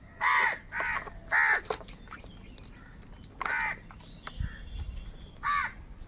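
House crows cawing: three caws in quick succession in the first second and a half, then a single caw about three and a half seconds in and another near the end.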